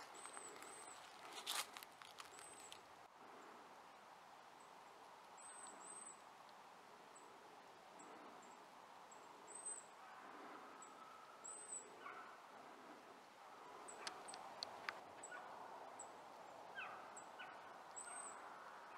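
Faint woodland ambience with small birds giving short, high, thin chirps every second or so, and a few other calls near the end. A few light crackles of footsteps on dry leaf litter are heard near the start and again about three-quarters of the way through.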